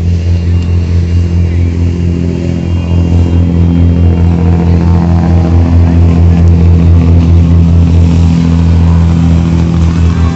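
Ferry boat's engine running with a loud, steady low drone.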